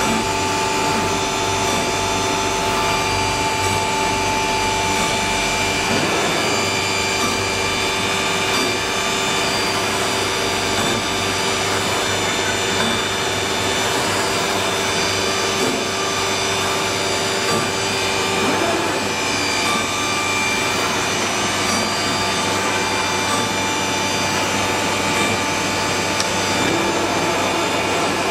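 CNC wood router running steadily over a wooden panel, a continuous spindle whine made of several steady tones over a hiss. One of its tones drops out about six seconds in.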